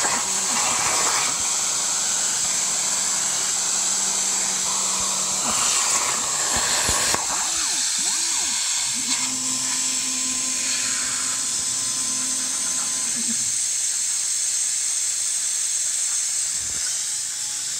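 CNC plasma cutter cutting steel sheet over a water table, a steady hiss with a low hum under it. The cut finishes about six or seven seconds in, and the hiss carries on afterwards, with a different low hum for a few seconds in the middle.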